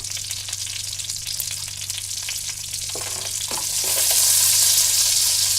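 Hot fat sizzling and crackling in a cooking pot. A couple of soft knocks come about three seconds in, and the sizzle swells louder about a second later.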